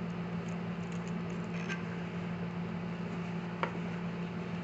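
Steady low room hum, with the faint clicks of small metal parts being handled as a threaded light mount is worked into place: one about a second and a half in, another about three and a half seconds in.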